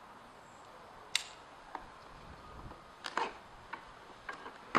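A few short, sharp clicks and light handling noises from a knife being opened and used on a cardboard box's packaging: one click about a second in, a cluster around three seconds, and the loudest click at the very end.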